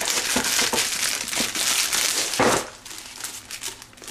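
Thin clear plastic bag crinkling as it is pulled off a small cardboard box, loud for about the first two and a half seconds, then dropping to softer, scattered rustles.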